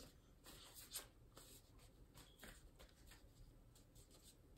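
Faint shuffling and handling of a tarot deck: soft scattered card flicks and rustles, the clearest about a second in.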